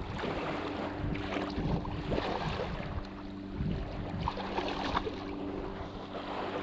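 A steady low motor hum over wind and water noise.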